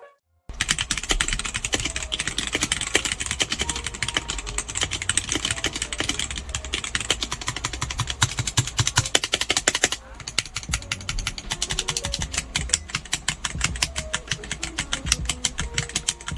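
Fast typing on a Womier K68 65% hot-swappable mechanical keyboard with Gateron Red linear switches: a dense, continuous run of keystroke clicks, briefly quieter about ten seconds in.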